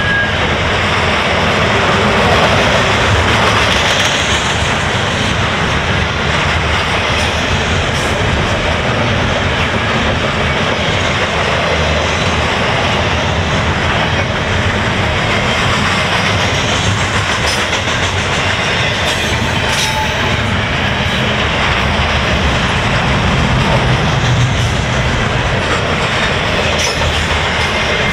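Double-stack container well cars of a long freight train rolling past at speed: a steady, loud rush of steel wheels on rail.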